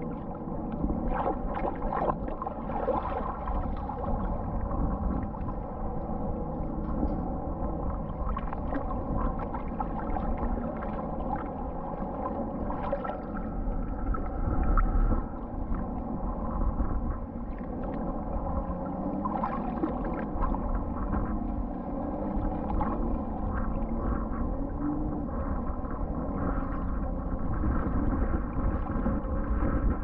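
Muffled water sloshing and gurgling around a camera held at the water's surface while wading in the shallows, with a steady hum of several tones underneath and slow warbling glides in the second half.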